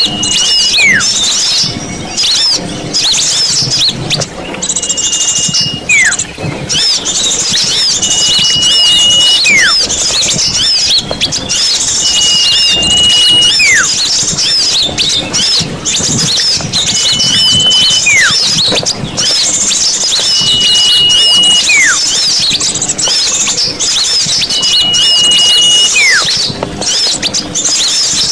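Bird-lure recording of many small birds twittering together in a dense, continuous chirping chorus. A whistled call cuts through about every four seconds: a held high note that then slides steeply down.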